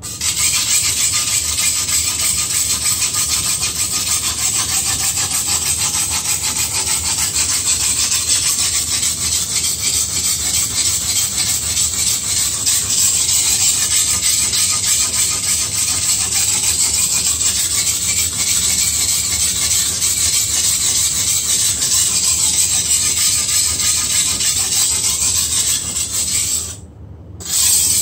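Steel blade of a Chinese cleaver scraped back and forth across a wet whetstone in quick, continuous sharpening strokes, a steady gritty rasp. It breaks off about a second and a half before the end, then comes back for one short stroke.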